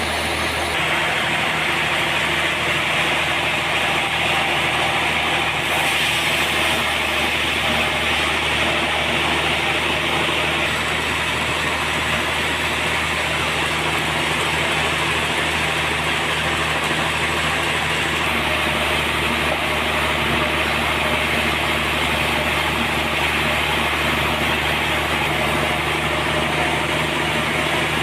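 Sawmill machinery running steadily: an engine hum under a loud, even hiss, with small shifts in tone about a second in and again past the middle.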